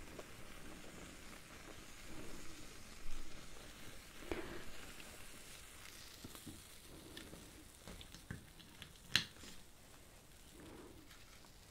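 Faint crackling and sizzling with soft handling taps as hands work around a small flaming metal burner, and one sharp click about nine seconds in.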